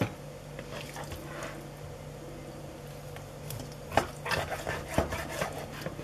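Kitchen knife cutting raw meat on a wooden cutting board, with a short tap at the start and a cluster of knocks and clicks of the blade and meat on the board about four to five seconds in.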